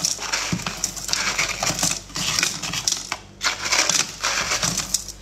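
Ice shavings and chunks pouring and sliding out of a plastic container onto ice in a stainless-steel food-chopper bowl: a dense, gritty crackling and crunching of ice, easing briefly about two and three seconds in.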